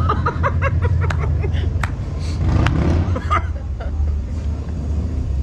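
A person laughing, a quick run of ha-ha pulses in the first second, then a few light clicks, over a steady low rumble.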